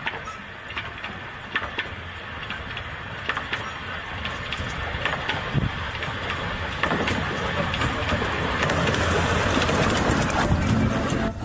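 Narrow-gauge steam train approaching and running past close by, its wheels clicking on the track, growing steadily louder as the locomotive and carriages go by.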